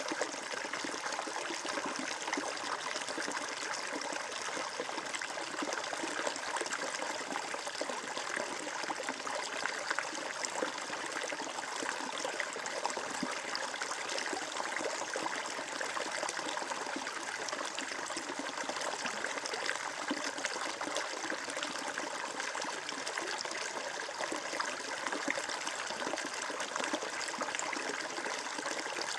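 Shallow stream water flowing and trickling steadily over stones, an even bubbling rush without pause.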